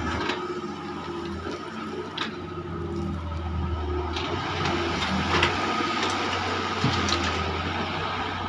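Doosan DX140 wheeled excavator's diesel engine running steadily under load as the machine lifts and swings a loaded bucket of soil, with a steady high whine over the engine and a few short clanks.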